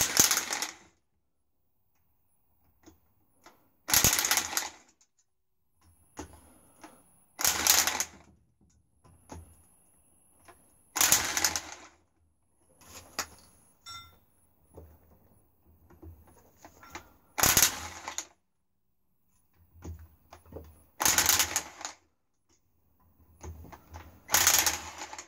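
Sealy impact wrench hammering on bolts in short loud bursts about every three to four seconds, with softer short bursts in between.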